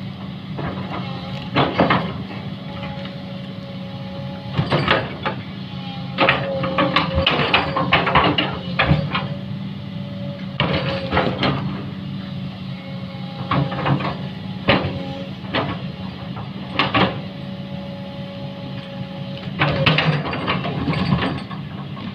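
An engine running steadily under irregular bursts of clanking and knocking, about a dozen clusters of hard impacts, some of them ringing briefly, as of machinery at work on the jetty repair.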